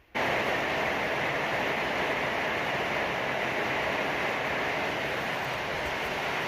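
Heavy rain pouring down in a thunderstorm: a loud, steady hiss that starts abruptly.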